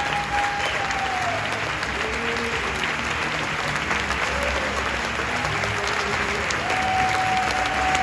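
Theatre audience applauding steadily, a dense continuous clapping.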